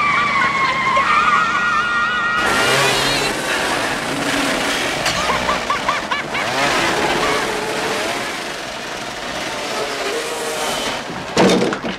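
Riding lawn mower engine running hard, its tyre spinning and skidding on dirt, with a woman laughing over it about five seconds in.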